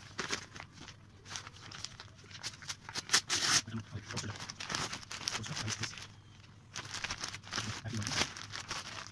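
A paper courier bag is handled and torn open: irregular crinkling and rustling of the paper, with a louder tearing burst about three seconds in as the sealing strip comes off. Near the end, plastic wrapping rustles as the bagged jacket is pulled out.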